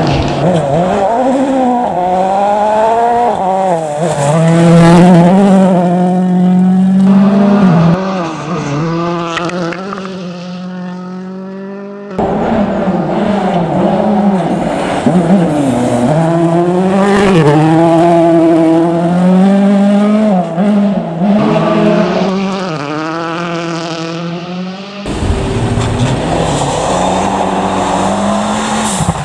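Rally cars driven hard on loose gravel in three separate passes, a Ford Fiesta and a Mitsubishi Lancer Evolution among them. Engines rev up and fall away again and again through gear changes and lifts, with tyres on the gravel.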